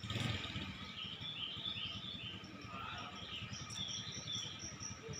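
Outdoor ambience: an insect chirping in an even, rapid pulse, about four chirps a second, with birds twittering over a low background rumble. A brief bump comes right at the start.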